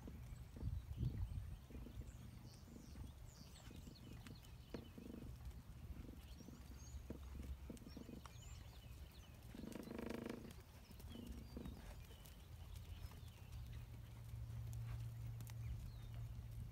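Faint hoofbeats of a horse moving on a sand arena footing, heard as soft dull thuds under a low steady rumble. About ten seconds in there is a brief pitched call, with a shorter one just after.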